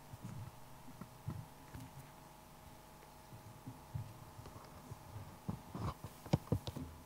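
Faint low bumps and knocks picked up by a live microphone, over a steady electrical hum, with a quick run of sharper clicks near the end.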